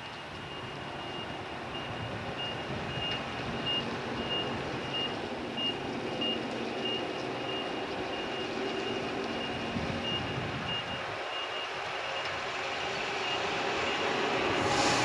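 An electric train approaching, its rumble growing steadily louder, while a high electronic beep repeats about twice a second until it stops around twelve seconds in.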